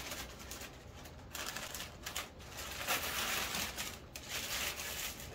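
Gift wrapping paper rustling and tearing in irregular bursts, getting louder about three seconds in.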